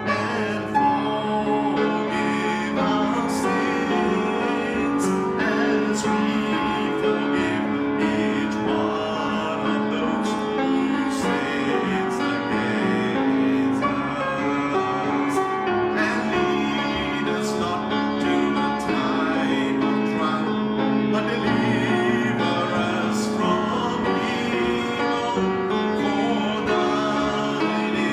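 Worship music played by a band, sustained chords with scattered percussion hits.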